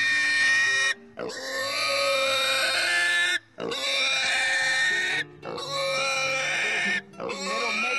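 A pig screaming loudly while it is held down for treatment: about five long squeals, each one to two seconds, with short breaks between them.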